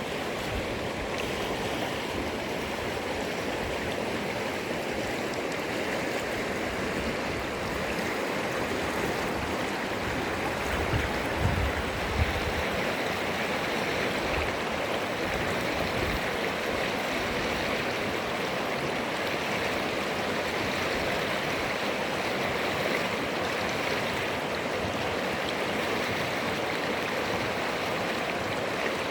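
River water flowing in a steady, even rush, with a couple of brief low thumps about eleven to twelve seconds in.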